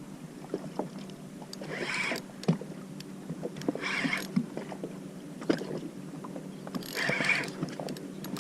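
Scattered knocks and clicks on a small fishing skiff over a faint steady low hum, with three short hissing bursts about two to three seconds apart.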